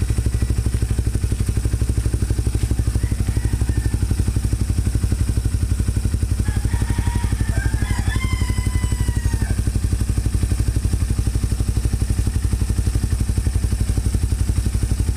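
Suzuki Raider 150's single-cylinder four-stroke engine idling steadily just after being started, with an even, rapid exhaust pulse. The engine is idling to circulate oil through a newly fitted 6-row oil cooler.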